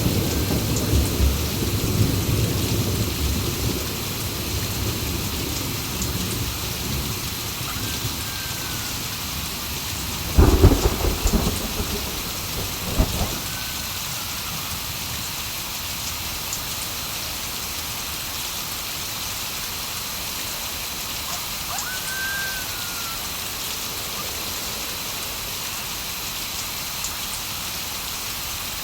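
Steady heavy rain with thunder: a low rumble rolls through the first few seconds, then a sharp thunderclap about ten seconds in, followed by a smaller crack a couple of seconds later.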